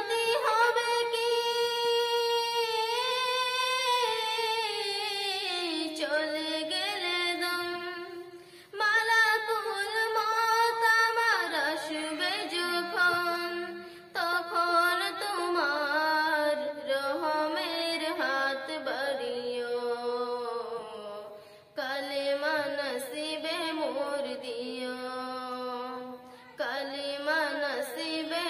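A young girl singing a Bengali Islamic song (nasheed) solo, in long held, ornamented phrases with short breaths between them.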